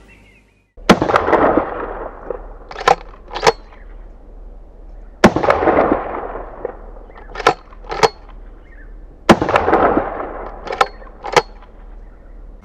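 A 12-gauge Uzkon TR-X pump-action shotgun fired three times, each shot echoing away. About two seconds after each shot comes a quick pair of sharp clacks as the fore-end is pumped back and forward to chamber the next shell.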